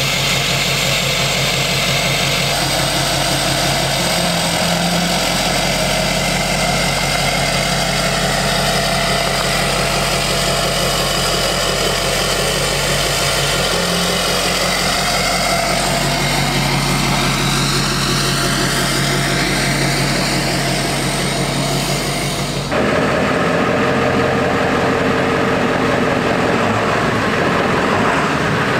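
Diesel pickup truck engine idling steadily, with a high turbo whistle drifting up and down over it. About 23 seconds in the sound changes abruptly to another idling engine without the whistle.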